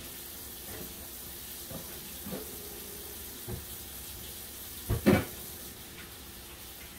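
Kitchen sink tap running while hands are washed under it. A few light knocks, with a louder double knock about five seconds in.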